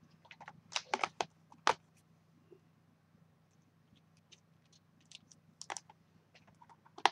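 Sharp clicks and light rattles of a clear plastic storage case being opened and handled, with a cluster of clicks about a second in and another near the end.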